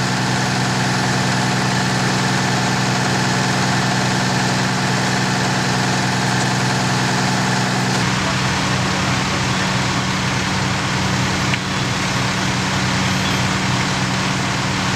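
Fire engine's diesel engine running steadily at idle, a constant low hum, its sound shifting slightly about eight seconds in.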